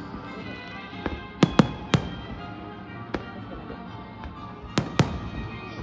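Aerial fireworks going off in sharp bangs, a quick cluster of three about one and a half to two seconds in, a lone one at about three seconds, and two close together near the end, over steady music playing throughout.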